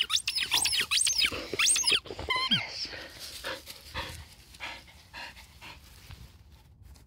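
Belgian Shepherd (Groenendael) dog panting close by after running in for the ball. The first two seconds hold high, quickly rising and falling squeals, and there is one falling squeal near the middle.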